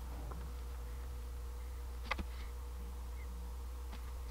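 A steady low hum under one light click about two seconds in, from hands working a carved wooden lure bedded in modelling clay.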